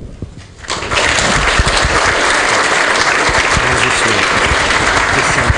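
Audience applauding, starting under a second in and holding steady.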